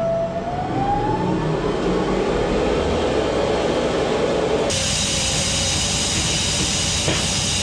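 Machinery running with a steady mechanical noise, its whine rising in pitch about a second in as it speeds up. A high hiss cuts in suddenly about five seconds in.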